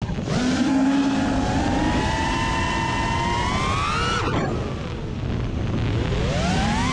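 FPV quadcopter's brushless motors and propellers whining, with wind rush. The pitch climbs slowly for about four seconds, drops sharply just after four seconds, then climbs again near the end.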